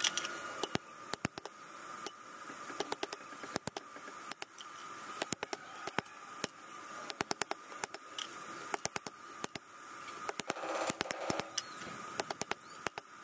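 Short stainless steel tube pieces clinking and tapping against each other and the board as they are handled and laid out, many sharp metallic clicks in quick, irregular clusters, with light hammer taps near the end.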